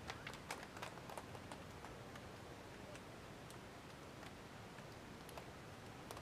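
Faint, scattered hand claps and high-five slaps from footballers, irregular sharp smacks that come thickest in the first couple of seconds, over a low steady outdoor background.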